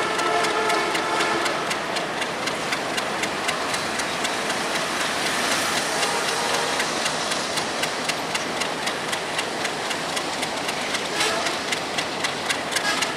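A train running on the track: a steady rushing rumble with regular sharp clicks of wheels over rail joints and points, several a second. A pitched hum sounds in the first second or so and briefly again near the end.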